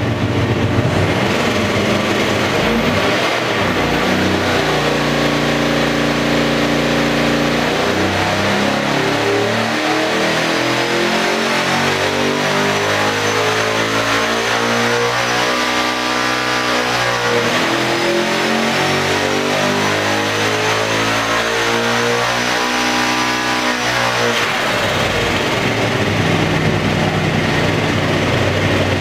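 Supercharged Chevy LSX V8 racing engine running under load on an engine dynamometer. It holds a steady speed for a few seconds, then rises in two long sweeps, dropping back briefly between them, and settles back toward idle near the end. A faint high whine from the Vortech centrifugal supercharger climbs with the revs.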